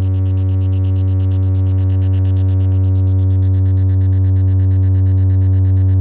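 DJ speaker stack playing a loud, steady low bass tone with a buzzy row of overtones, held at one pitch without a break.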